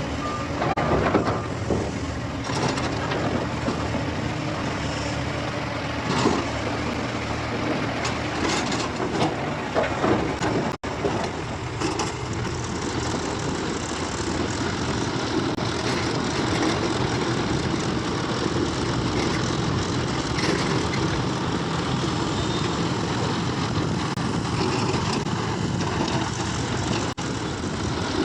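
Heavy diesel machine engine running steadily, with several sharp knocks and clanks in the first ten seconds.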